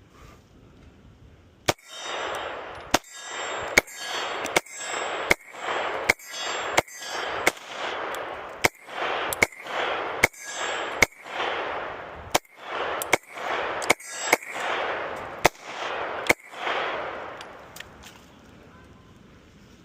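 Canik TTI Combat 9mm pistol fired in a steady string of about eighteen shots, roughly one a second, each with a long echoing tail.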